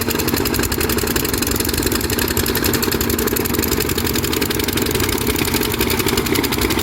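Diesel engine of a Kobelco SK200 excavator running steadily at an even speed.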